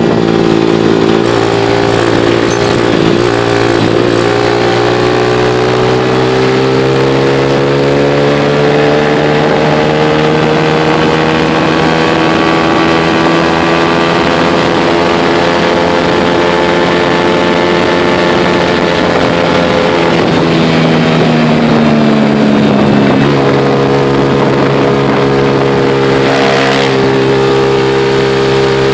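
A vehicle engine running steadily under road and wind noise. Its pitch climbs slowly, falls off about twenty seconds in, then holds steady.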